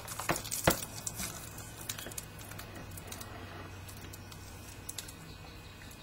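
A few sharp clicks and light rustling, the loudest click about half a second in and smaller ones scattered after, over a steady low hum.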